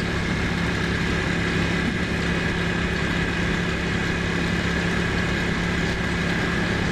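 Ducati Monster motorcycle engine running at a steady, unchanging pitch over an even rush of noise.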